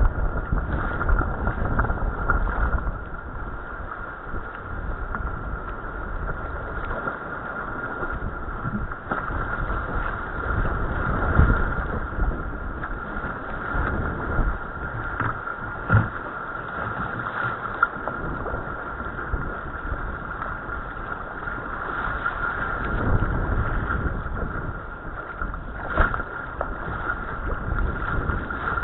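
Choppy tidal-race water rushing and slapping against a sea kayak's hull, with wind buffeting the microphone; several sharper slaps stand out.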